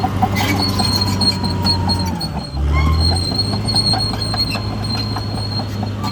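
CAT D6R XL crawler bulldozer's diesel engine running under load, with the steel tracks clanking and squealing. The engine note dips and shifts about halfway through, then steadies again.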